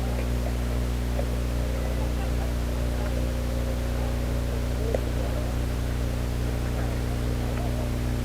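Steady low hum under a background hiss, with a few faint ticks.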